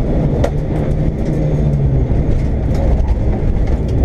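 Rally car engine running hard at a steady pitch, heard from inside the cabin over heavy road rumble, with a few sharp knocks from the rough road surface, the loudest about half a second in.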